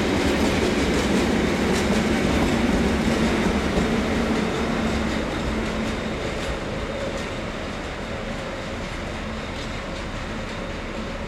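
A freight train of coal hopper wagons rolling past with a steady hum and wheel clatter, ending with its rear ÖBB Taurus electric locomotive. The sound fades from about five seconds in as the train moves away.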